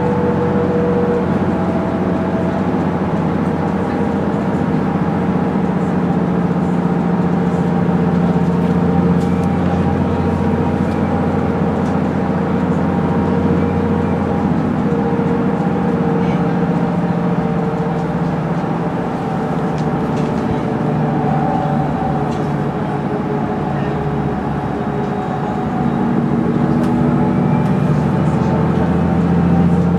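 Mercedes-Benz O530 G Citaro articulated bus running: its rear-mounted diesel engine and Voith automatic gearbox heard from inside the rear section. The sound is steady, eases slightly about two-thirds of the way through, and rises again near the end.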